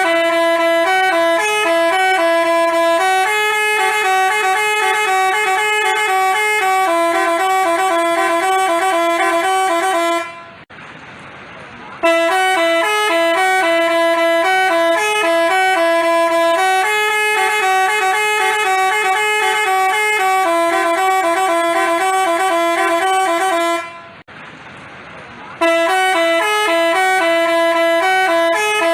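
Telolet basuri bus horn playing a melody in held, stepping notes. A phrase of about ten seconds is played, stops briefly, is played again, and a third run starts near the end.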